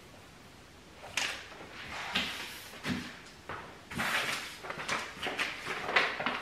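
Handling noise: an irregular series of knocks and clacks, with rustling growing about two thirds of the way through, as a cordless drill and other assembly items are picked up and set down on a hard surface.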